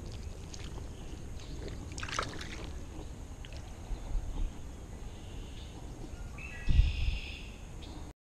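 Water sloshing and splashing as a common carp is released into shallow water and swims off, over a steady low rumble. A sharp splash comes about two seconds in, and a low thump near the end is the loudest sound.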